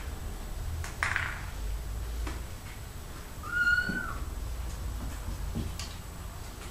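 A kitten mews once, a short high-pitched call a little past halfway. There is a light knock about a second in.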